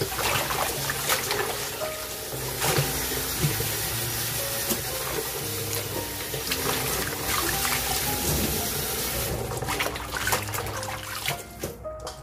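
Kitchen tap running into a stainless steel bowl as hands swish and rinse salted napa cabbage, with splashing; the water sound stops near the end. Background music with a melody plays throughout.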